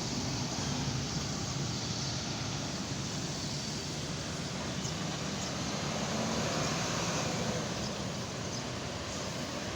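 Diesel engine of an intercity bus running steadily, with a steady wash of traffic noise.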